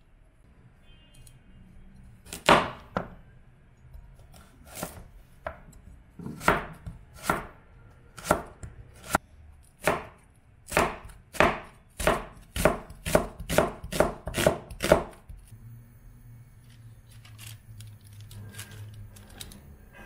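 A cleaver chopping an onion on a plastic chopping board. The chops are well spaced at first, then come quicker, about three a second, in the second half.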